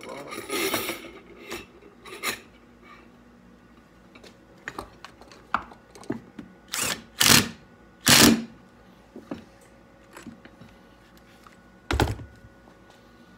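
Metal fork parts and tools handled on a workbench: a scatter of clanks, clicks and scrapes, with three loud short bursts about seven to eight and a half seconds in and a heavy thunk near the end.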